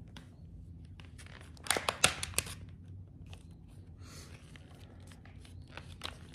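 Hard plastic clamshell lure package being handled, crinkling and clicking. There is a cluster of sharp crinkles about two seconds in, then scattered faint clicks.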